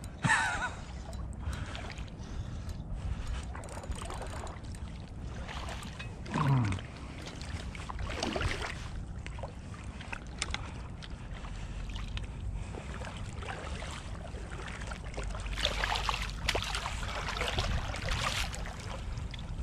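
Wind rumbling on the microphone over river water lapping, with a smallmouth bass splashing at the surface. The splashing grows louder for the last few seconds as the fish is drawn into a landing net.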